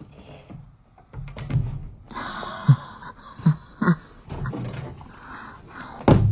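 Frozen, board-stiff clothes knocking and clattering against a wooden balcony railing and deck in a few sharp knocks. Short low voice sounds come between the knocks, and a louder burst of sound comes in right at the end.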